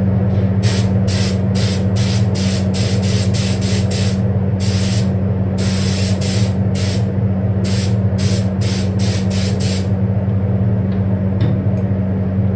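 Compressed-air paint spray gun hissing in about twenty short bursts as paint is sprayed on in passes; the bursts stop about ten seconds in. Under it runs the steady drone of a spray-booth fan.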